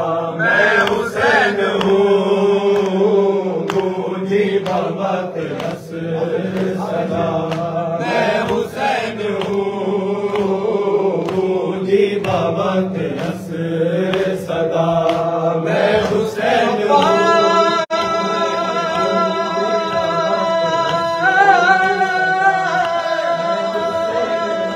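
Male voices chanting an Urdu noha, a mourning lament, into microphones, with others joining in unison and chest-beating (matam) slaps sounding through it. A stronger, brighter lead voice takes over about two-thirds of the way in.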